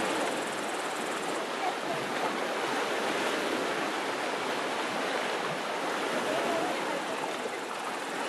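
Small sea waves washing, a steady even hiss.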